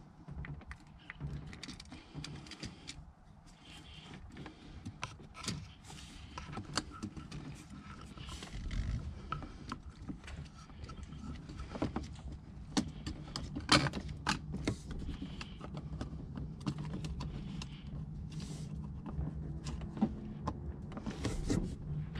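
Hands fitting a plastic gauge and its cable connectors into a windshield-mount pod: irregular small plastic clicks, knocks and cable rustling, with a faint steady low hum underneath.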